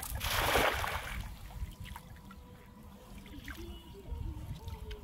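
A weighted cast net landing flat on pond water: a spraying splash and hiss that lasts about a second, then fades to faint trickling.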